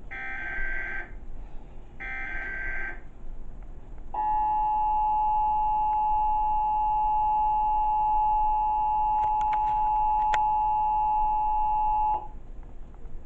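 Emergency Alert System test: the SAME header's screeching data bursts, two of them about a second each, then the EAS two-tone attention signal (853 and 960 Hz) held steady for about eight seconds before cutting off.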